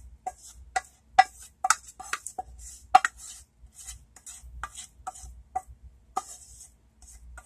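A spoon clinking and scraping against a dish while spooning thick barbecue sauce onto chicken in a crock pot: about a dozen light, irregular taps with soft scrapes between them.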